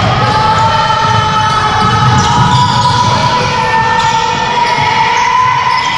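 Basketball being dribbled and bouncing on a hardwood court while players run on it, echoing in a large gym hall. A steady high-pitched tone sits under the play.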